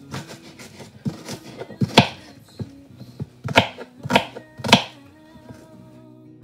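A kitchen knife chopping onions on a cutting board in irregular strokes, the loudest chops coming about two seconds in and three more in quick succession in the second half, over background music.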